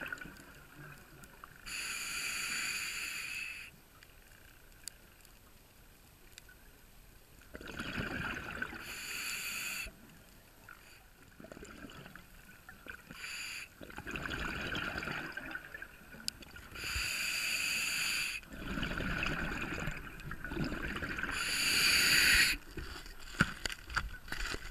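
A scuba diver breathing through a regulator: hissing inhalations alternating with bubbling exhalations, about four breaths with short pauses between them.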